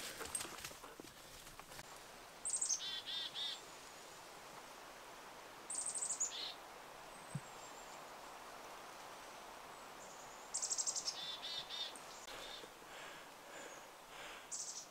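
Black-capped chickadee giving its chick-a-dee call four times, a few seconds apart. Each call is one or two high thin notes followed by a quick run of lower repeated 'dee' notes.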